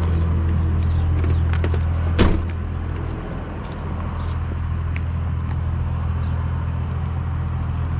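Steady low hum of a nearby idling vehicle engine, with a single sharp knock about two seconds in.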